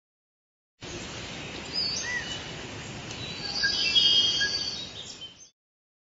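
Small birds chirping and twittering over a steady hiss, starting about a second in, busiest in the middle, then fading out.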